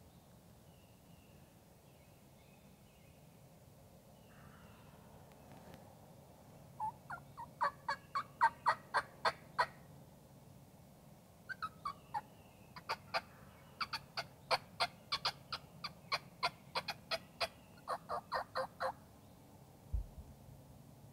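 Turkey yelping in fast runs of sharp, clipped notes, about four a second, in four runs over some twelve seconds. A single low thump comes near the end.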